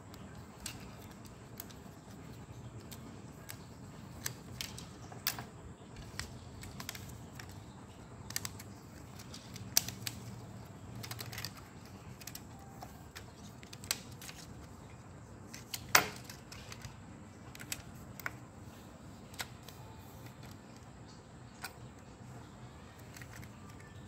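Scattered light clicks and taps of film and fingers against the metal guide rollers and sprocket of a Hokushin 16 mm projector as film is threaded by hand, irregular like slow typing, with one sharper click about sixteen seconds in.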